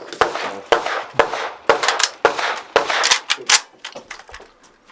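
A rapid string of about eight gunshots at a shooting range, roughly two a second, then stopping.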